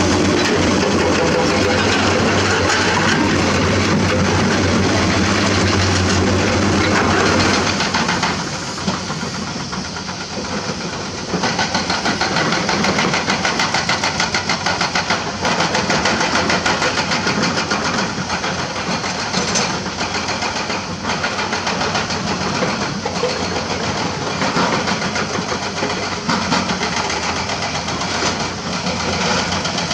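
Diesel engines of hydraulic excavators, a Komatsu PC200 among them, running under load. A steady low drone at first, a drop in level about eight seconds in, then frequent sharp knocks and clatter of limestone rock as the buckets dig.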